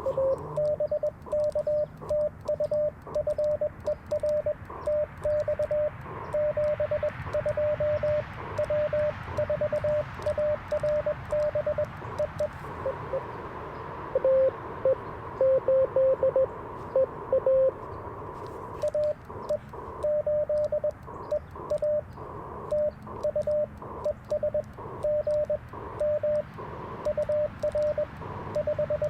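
Morse code (CW) tones from an Icom IC-705 transceiver: a steady stream of dits and dahs keyed at about 600 Hz over band hiss, with a fainter second station keying at a higher pitch. For a few seconds around the middle the keying is louder and a little lower in pitch.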